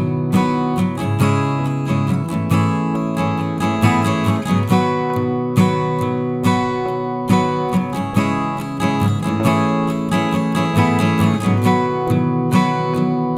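Background music: strummed acoustic guitar with a regular rhythm.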